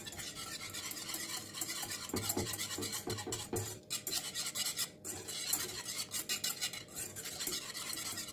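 Wire whisk stirring a thin custard of milk, sugar and egg in a saucepan as it is brought to the boil, its wires rapidly scraping and clicking against the pan, with two brief pauses about four and five seconds in.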